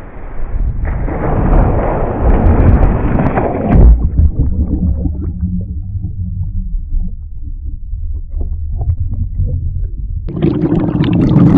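A person plunging into a cold rock-pool: a few seconds of loud splashing that stops abruptly, then a muffled, low gurgling rumble, with splashing returning near the end.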